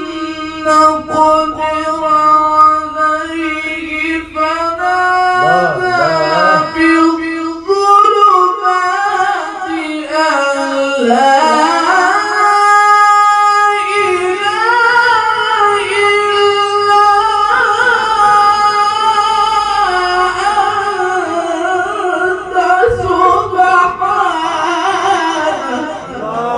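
A voice singing in Arabic maqam Nahawand: long held notes joined by slides and quick ornamented turns, in a melismatic, improvised style.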